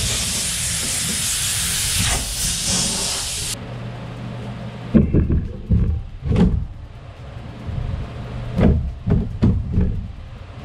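A loud, steady rushing hiss as fibreglass dust is blasted off a boat's hull floor, cutting off suddenly after about three and a half seconds. Then comes a run of short knocks and bumps as a moulded fibreglass transom section is set into place against the hull.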